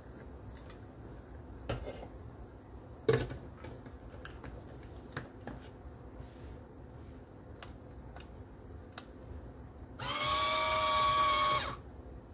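Plastic clicks and knocks as the parts of an electric citrus juicer are handled, with one sharp knock about three seconds in. Near the end the juicer's motor runs for under two seconds with a steady whine, then stops.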